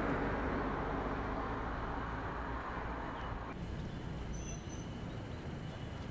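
Steady rushing outdoor noise beside a road, traffic or wind, that cuts off abruptly about three and a half seconds in. A quieter, even ambience follows, with a faint short chirp.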